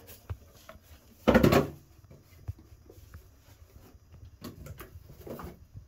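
A single short, loud knock about a second and a half in, followed by faint clicks and rustling.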